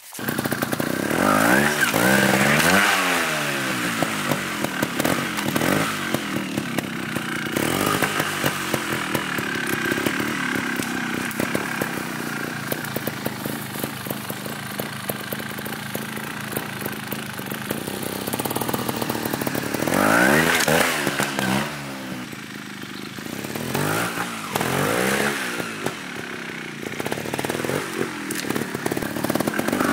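Trial motorcycle engine revving in short, sharp blips, its pitch sweeping quickly up and down, with steadier running between; a cluster of quick blips comes about twenty seconds in and again near the end. The rider finds the bike's short throttle very brutal, so the revs climb fast.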